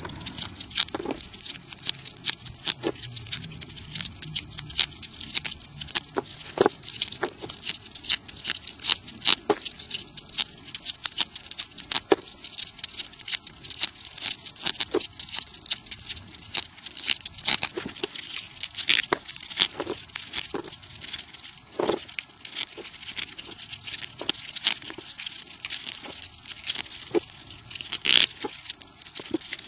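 Folded paper units of a 3D origami model rustling and crackling as they are handled and slotted into one another, in a dense run of quick, dry crackles and clicks.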